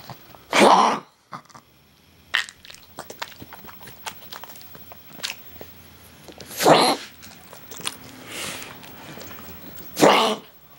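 Pug coughing in fits: three loud, harsh coughs about a second in, near seven seconds and just after ten seconds, with smaller hacks and clicks between. The owners think the cough might be kennel cough.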